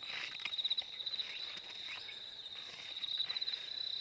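Insects chirping in a steady high-pitched trill that pulses in short runs, with a few faint rustles in the first second.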